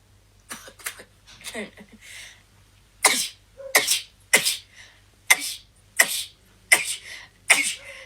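A woman sneezing over and over in quick succession, about seven sharp sneezes in a row starting about three seconds in, after a few quieter sounds. It is a sneezing fit set off by the nasal swab tickling inside her nose.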